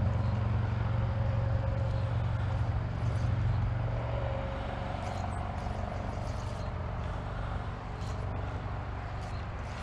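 Low, steady rumble of a distant vehicle that slowly fades, with a faint hum that rises a little in pitch through the middle.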